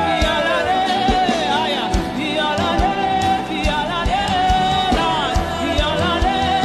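Gospel worship music with a steady drum beat and a sustained, wordless sung or instrumental melody line.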